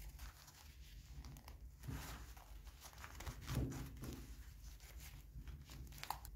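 Work gloves rustling and rubbing as hands handle and try to open a pair of rusty, jammed pliers, with scattered small clicks and a dull knock about three and a half seconds in.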